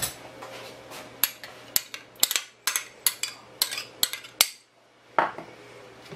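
A spoon clinking and knocking against a container as yogurt is spooned out: a quick run of a dozen or so sharp clicks, then a pause and one more knock.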